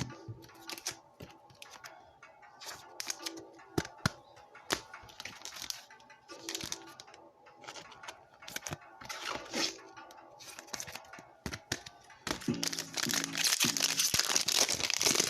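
Trading-card pack wrappers crinkling and tearing, with light clicks and snaps of cards being handled, over background music. The crinkling is loudest and most continuous for the last three seconds.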